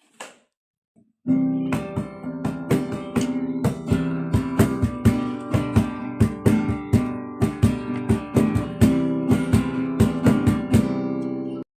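Background music of a strummed acoustic guitar in a steady rhythm, starting about a second in and cutting off suddenly near the end.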